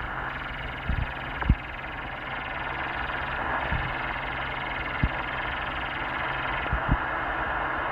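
Ham/CB transceiver speaker on lower sideband giving out a steady rushing, fluttering interference noise, which the operator identifies as over-the-horizon radar. A few short low thumps come through, the loudest about a second and a half in.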